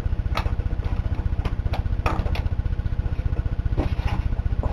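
Sharp metal clicks and taps, about six of them, from snap ring pliers working at a snap ring inside a Ford C4 automatic transmission case. They sit over a louder, steady low mechanical hum.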